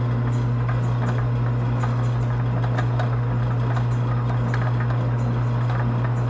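Metal lathe running steadily in back gear, turning in reverse, with a strong even low hum and faint irregular ticks.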